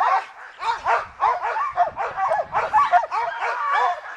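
A team of sled dogs barking and yelping together in a dense chorus of overlapping high calls, several a second.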